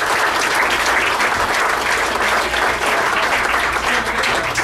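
Audience clapping steadily, welcoming a comedian onto the stage.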